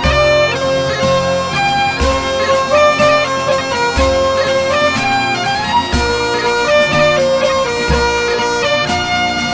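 Background music: a bagpipe tune playing over its steady drones, with a regular low drum beat.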